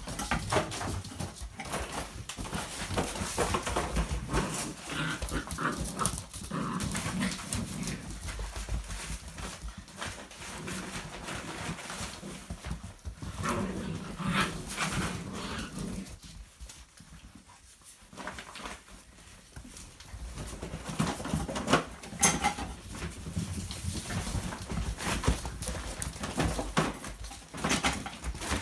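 Seven-week-old puppies playing rough together: short yips and whimpers over a busy clatter of claws skittering on the hard floor and bags being tugged and rustled. The play goes quieter for a few seconds just past the middle, then picks up again.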